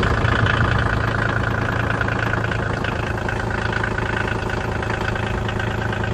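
Kioti CX2510 compact tractor's three-cylinder diesel engine idling steadily just after starting, its first run on fresh oil and a new oil filter. The level eases slightly over the first few seconds as it settles.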